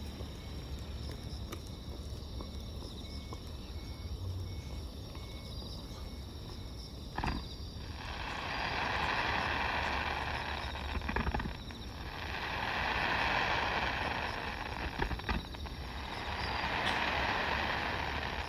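Fireworks: a low rumble, then a sharp bang about seven seconds in, followed by three swelling bursts of crackling, each lasting two to three seconds, with a few sharp pops between them.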